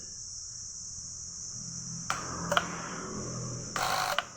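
Push button and 8-pin relays on a relay logic trainer board switching: two sharp clicks about half a second apart, then two short bursts of buzzing clatter near the end as the relays pull in and the output latches on. A steady high-pitched whine sits underneath.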